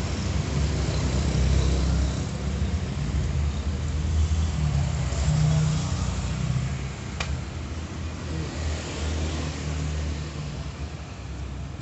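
A low, steady rumble that eases off over the second half, with one sharp click about seven seconds in.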